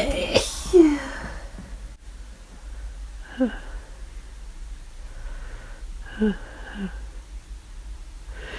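A person with the flu sneezing: one sharp sneeze about half a second in, ending in a short falling voiced sound. Three brief, quieter falling vocal sounds follow, one about three seconds in and two close together near six seconds.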